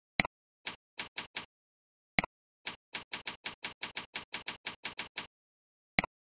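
Computer keyboard typing: quick runs of key clicks at about five a second, broken by a few louder single clicks as the cursor moves to a new form field.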